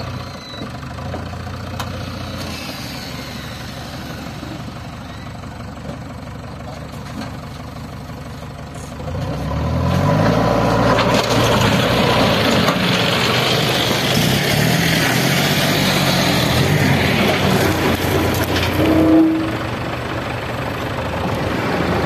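Diesel engine of heavy machinery running steadily, then revved up about nine seconds in and running loud and hard with its pitch climbing. A short tone sounds near the end, and the engine then settles to a lower level.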